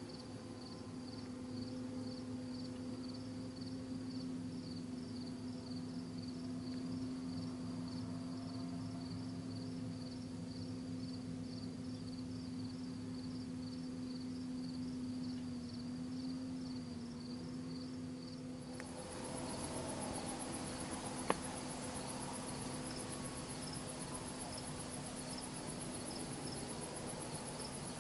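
Crickets chirping in a steady, even rhythm over a steady low hum. About two-thirds of the way in the chorus changes abruptly to a denser, higher insect trill, and a single sharp click is heard a few seconds later.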